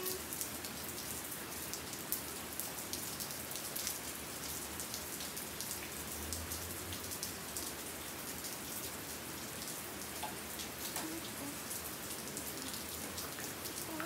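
Steady rain patter with many small scattered drop ticks.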